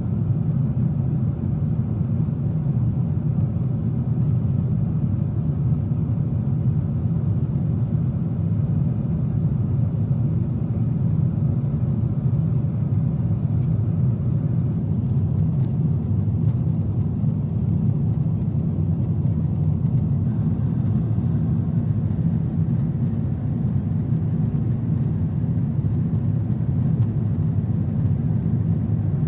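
Steady low rumble inside the cabin of a Boeing 777-200ER in flight: engine and airflow noise, even and unchanging.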